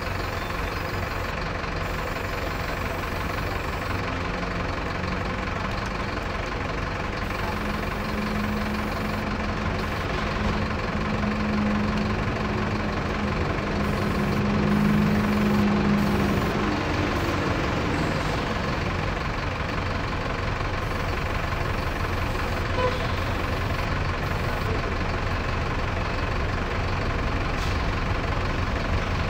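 A motor vehicle's engine running steadily at idle, a constant drone with a stronger low hum swelling between about seven and seventeen seconds in.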